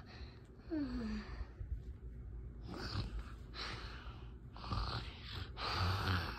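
A child's short falling sigh about a second in, then four noisy breaths about a second apart: pretend tired breathing for the plush.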